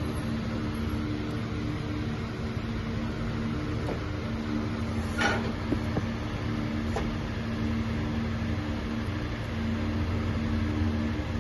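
Steady mechanical hum, with a few held tones over a low rumble. A brief sharp sound comes about five seconds in, followed by a couple of faint clicks.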